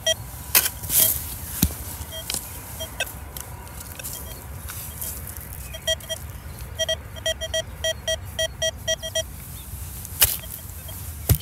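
Metal detector beeping over a target: short identical beeps at one pitch, a few scattered early on and then a regular run of about four a second in the second half. A few sharp knocks come in between.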